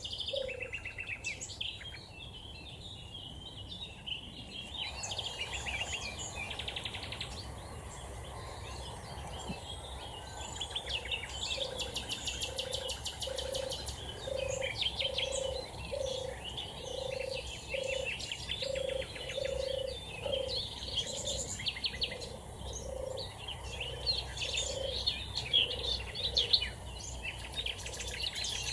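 European turtle dove purring, a low rolling call repeated over and over from about a third of the way in, over a chorus of other songbirds chirping and trilling.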